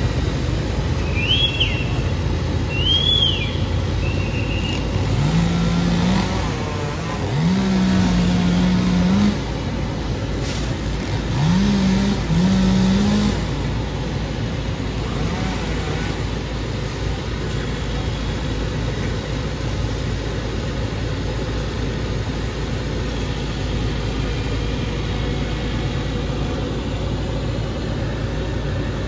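Chainsaw revving in four short bursts, each rising quickly to full speed and holding there for a second or two, over a steady hum of road traffic. A few short bird whistles near the start.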